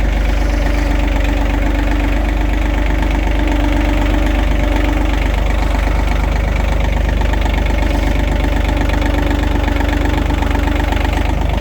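Small farm tractor's engine running steadily, a loud low rumble with a humming tone that fades in and out.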